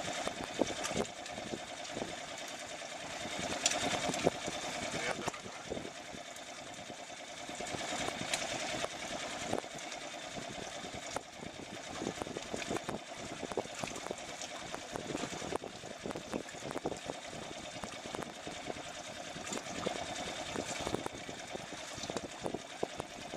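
Fishing reel being wound in with a steady whirring, with scattered small clicks and knocks.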